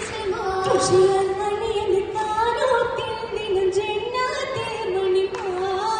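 Girls singing an Oppana song, a Mappila folk melody sung as one line with long, wavering held notes.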